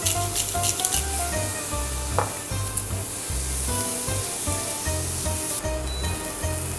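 Diced onion and carrot sizzling in a hot nonstick frying pan, stirred and pushed around with a wooden spatula: a steady frying sizzle with light scraping.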